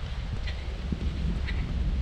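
Wind buffeting the microphone, a gusty low rumble, with a short faint sound repeating about once a second above it.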